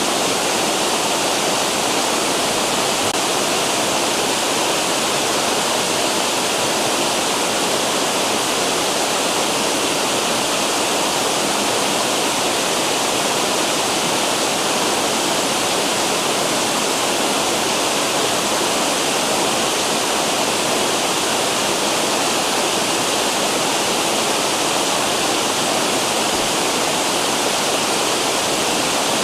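Water pouring over small cascading falls in a river, a steady, loud rush that does not change.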